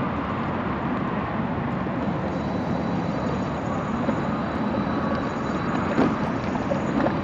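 Steady road noise from heavy traffic on a nearby interstate highway.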